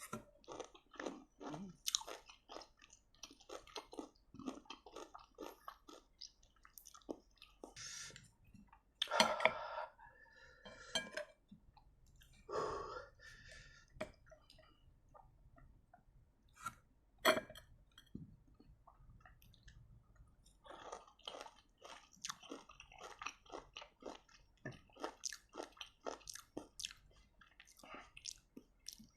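Close-up chewing and crunching of lime rujak with sambal: a steady run of small, wet crunches, broken by a few louder bites a third of the way in and again about halfway through.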